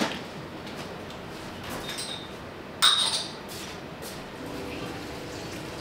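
Kitchen clatter of metal cookware and utensils: scattered clinks and taps, the loudest a sharp ringing clink about three seconds in.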